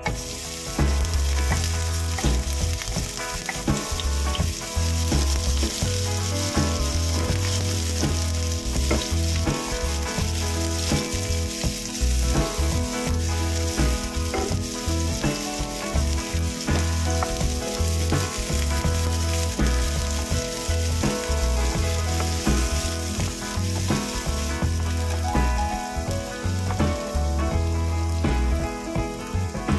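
Chopped onion sizzling in hot oil in a nonstick frying pan, the sizzle starting suddenly as the onion goes in, with occasional scraping as a wooden spatula stirs it.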